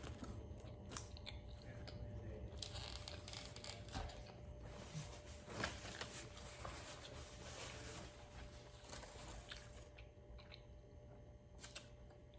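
Close-miked eating: chewing and biting into food, with crinkling of the paper wrapping, heaviest through the middle and quieter near the end.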